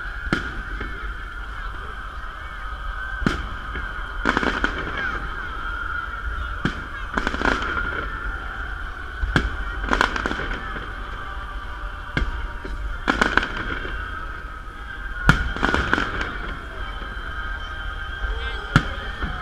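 Fireworks salute shells bursting: about a dozen sharp bangs at irregular intervals, several coming in quick clusters, over steady crowd chatter.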